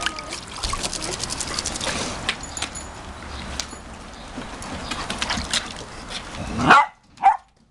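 Small dog barking twice near the end, two short sharp barks. Before that, a run of light clicks and rattles over a busy background.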